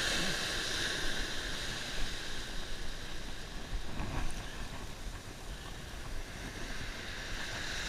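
Light surf washing up the sand at the water's edge, with wind rumbling on the microphone.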